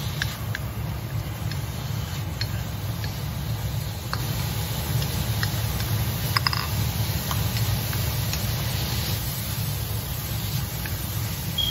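Wooden spatula stirring and tossing vegetables in a metal wok, with scattered clicks of the spatula against the pan and faint sizzling over a steady low hum.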